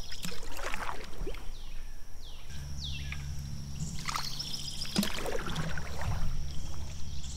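Wooden canoe paddle working the water: a few strokes with splashing and dripping as the blade enters and lifts out, over a steady low hum that comes in a little way in.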